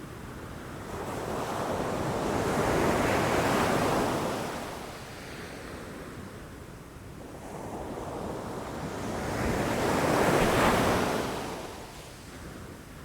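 Ocean waves crashing against rocks, two big surges of rushing surf about seven seconds apart, each building up, breaking and washing back.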